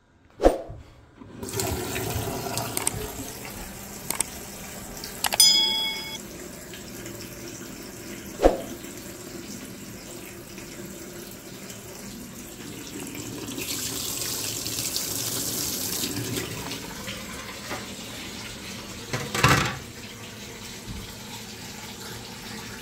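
Tap running steadily into a sink, opened to draw hot water from the boiler, the flow a little louder around the middle. A few sharp knocks are heard, with a brief ringing clink about five seconds in.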